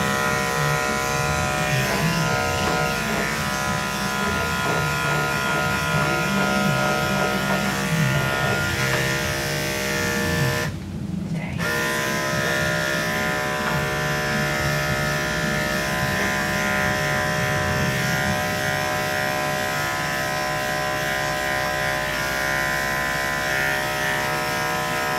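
Electric pet clippers running with a steady buzz as they shave a cat's fur, cutting out briefly about ten seconds in before running on.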